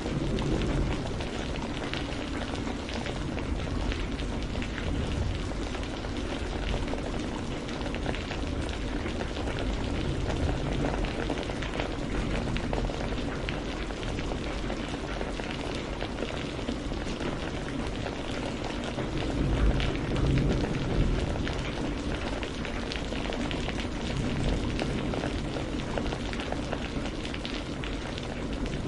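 Steady heavy rain falling, an even hiss of drops with a deep rumble underneath that swells louder briefly about two-thirds of the way through.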